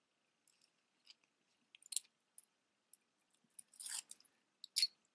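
Small metal necklace chains and costume jewelry being handled: light, scattered clicks and clinks, a short rustle around four seconds in, and a sharper click just before the end.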